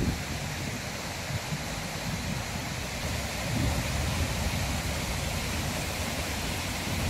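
Wind blowing steadily with a hiss, and low gusts buffeting the microphone.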